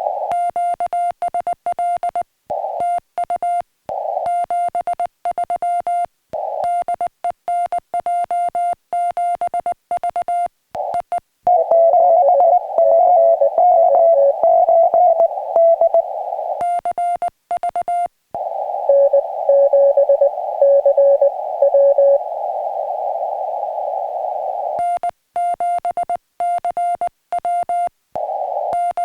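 Morse code (CW) on a portable ham radio transceiver: a steady tone of about 700 Hz keyed on and off in dots and dashes as a station is sent. About twelve seconds in it gives way to receiver hiss with a slightly lower-pitched station answering in Morse, and the sending resumes about five seconds before the end.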